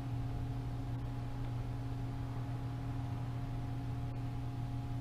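Steady low hum with a few faint steady tones above it from a powered-up Bridgeport EZ Trak DX II CNC vertical mill standing with its spindle stopped.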